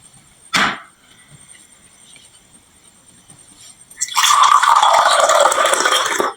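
Marbles on a wooden marble run: one sharp clack, then about two seconds of loud, dense clattering as many marbles pour and roll together, which cuts off suddenly.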